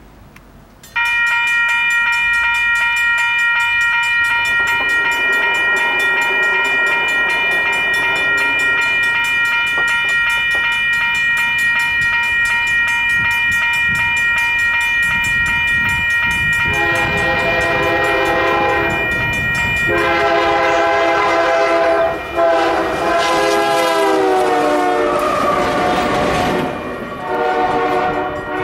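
Union Pacific locomotive's air horn sounding several long blasts as the train approaches and passes, the pitch dropping as it goes by, over the rumble of the train. Before the horn, from about a second in, a steady high-pitched ringing tone sounds until it stops about two-thirds of the way through.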